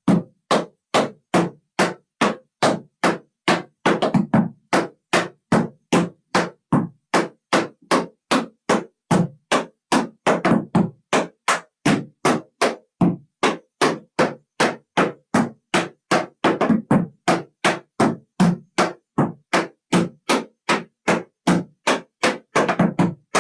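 Tap shoes striking a plywood tap board in a steady run of sharp clicks, about three a second, as a tap combination of LA time steps, shuffle ball changes and cramp rolls is danced.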